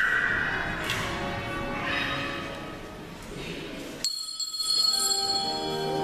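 Bells ringing at the elevation during Mass: several tones ring on and die away slowly, with a sharp new strike about four seconds in that sets off high, lingering tones.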